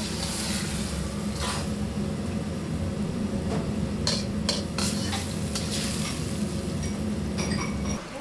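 Frying in a wok in a restaurant kitchen: a steady sizzle over the constant hum of the range, with a few sharp metal clinks of the ladle against the wok. The sound cuts off just before the end.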